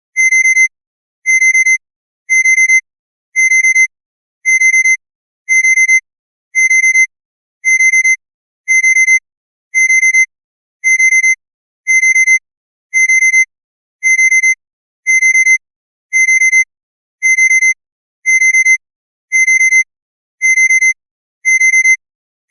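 Honda car's ignition warning chime: a high electronic beep repeating steadily, about once a second.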